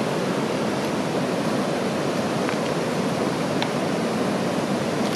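The Tiroler Ache, an alpine river in high water, rushing past with a steady roar ("Getöse").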